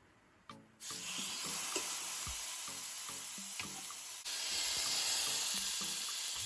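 Steak sizzling on a hot indoor electric grill: a loud steady hiss that starts suddenly about a second in, briefly breaks off and picks up again past the middle. Background music with plucked notes plays underneath.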